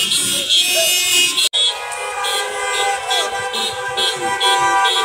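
Many car horns honking at once in a slow-moving line of traffic, some in repeated short beeps over longer held blasts: celebratory honking. The sound breaks off for an instant about a second and a half in.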